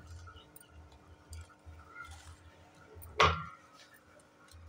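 A green chilli dropped into a glass blender jar lands with one sharp clink a little over three seconds in, under faint soft knocks of handling.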